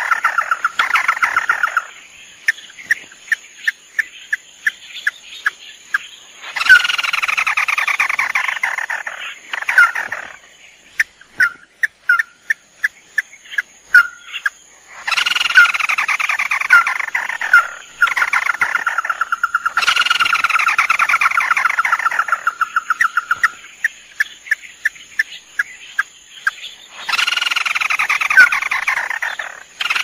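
Tikusan mata merah crake calls, male and female, as used to lure the bird. Long, rapid, descending trills of two to four seconds come five times. Between them are spaced single sharp call notes, about one or two a second.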